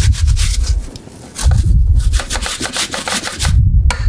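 Granny Smith apple, peel on, grated on a stainless steel box grater over a steel pot: fast rasping strokes, several a second, with low thuds under them. The strokes stop briefly about a second in and again near the end.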